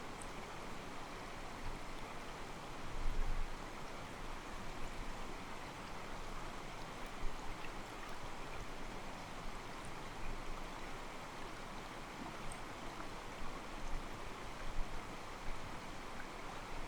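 Mountain stream flowing over rocks, water sloshing against them in a soft, steady rush.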